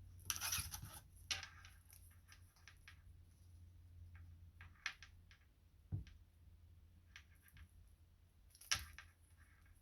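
Faint scattered clicks and short scratchy rustles of nail polish strips and small nail tools being handled during application, the loudest click near the end.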